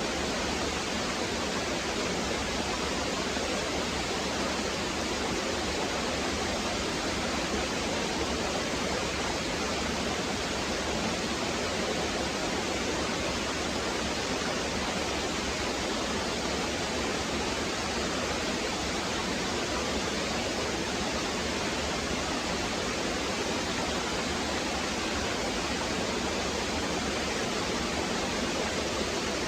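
Small waterfall splashing down a rock face, a steady, even rush of falling water.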